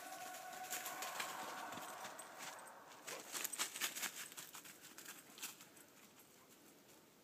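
Hunting hounds baying in the distance, one long drawn-out bay held for the first few seconds. Then a patter of crackles from dry leaves about three to four and a half seconds in.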